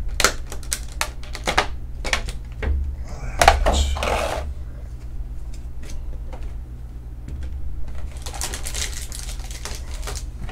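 Clear plastic clamshell blister packaging being pried open and handled: a quick run of sharp plastic clicks and snaps, with bursts of crinkling plastic about three seconds in and again around eight seconds.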